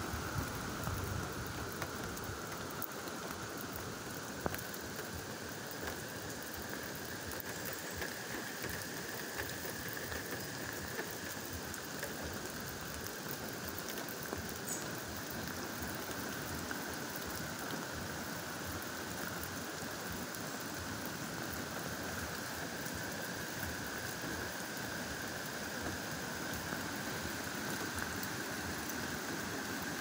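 Steady heavy rain falling on grass, ivy leaves and a puddled track, with scattered small drips.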